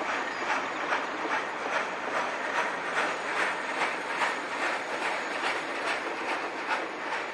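Freight train cars rolling past, their wheels clicking in a steady rhythm of about two to three clicks a second over a continuous rolling rumble of wheels on rail.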